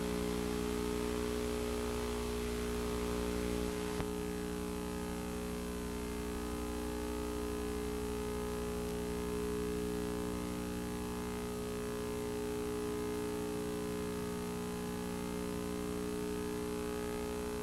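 Steady electrical hum with many evenly spaced overtones, unchanging throughout. There is a single click about four seconds in.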